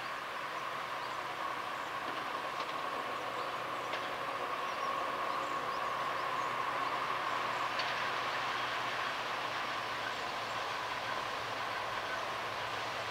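WDP4D diesel-electric locomotive approaching in the distance, its engine giving a steady, even drone.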